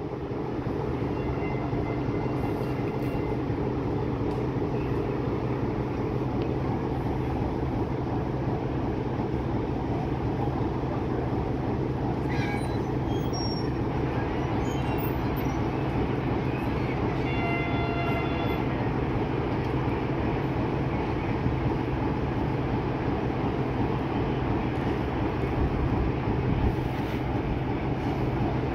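Class 060-EA electric locomotive standing in the station, its transformer and cooling blowers giving off a steady, even hum with a low drone under it. Faint brief high-pitched tones come in twice, once early and once just past halfway.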